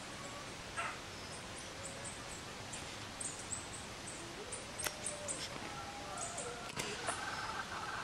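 Birds calling over a steady hiss: scattered high chirps, a couple of short gliding calls in the middle, and a rapid rattling call starting about seven seconds in.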